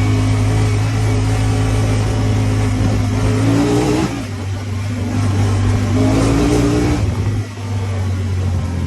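Honda Talon 1000R side-by-side's parallel-twin engine running under load. Its pitch rises twice as it revs up, about three and about six seconds in, and each time it falls away again.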